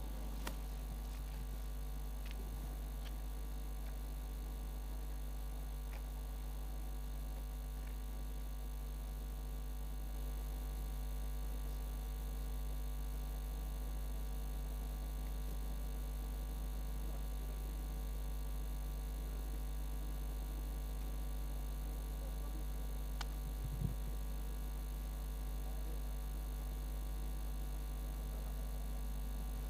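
A steady low electrical hum with a few fixed tones above it, unchanging throughout, and a single faint tick near the end.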